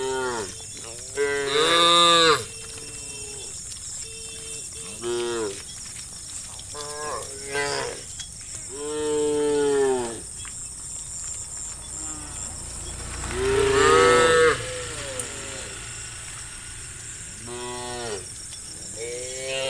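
Cows mooing repeatedly, about eight separate moos from more than one animal. Most are short, one is longer, and the loudest come about two seconds in and near fourteen seconds. A steady high-pitched whine runs underneath.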